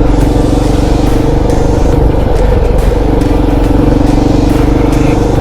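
Kawasaki KLR650's single-cylinder engine running steadily while the motorcycle is ridden.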